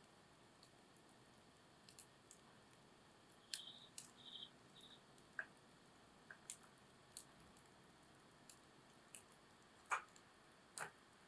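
Wood campfire crackling softly: scattered sharp pops and snaps over a faint hiss, with the loudest pops near the end. A short high chirp in three quick pieces about four seconds in.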